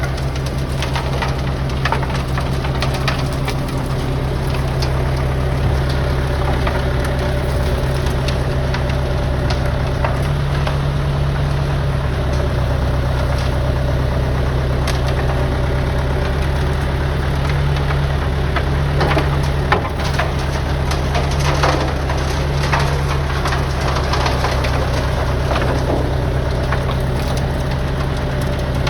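Diesel engine of a Merlo DBM 3500 self-loading concrete mixer running steadily at idle, with scattered clicks and knocks over the steady hum.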